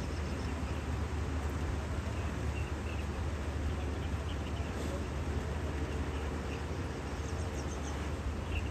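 Outdoor ambience: a steady low rumble under an even hiss, with faint scattered high chirps.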